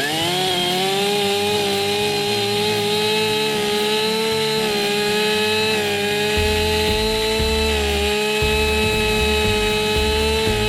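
Chainsaw revving up to full throttle right at the start, then held at high speed with small dips in pitch as it cuts through a log.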